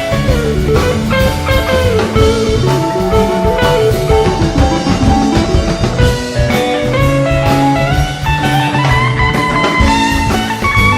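Live rock band playing an instrumental passage: a wandering, bending lead guitar melody over bass and drum kit.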